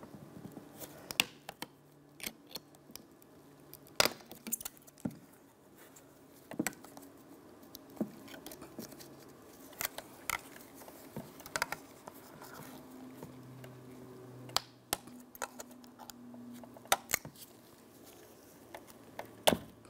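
Irregular small clicks and taps of a metal pick and plastic electrical connectors being worked apart on the back of a car's side-mirror glass, over a faint low hum.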